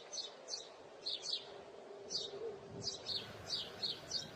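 Small birds chirping: short, high chirps repeating about three times a second over a faint background hum.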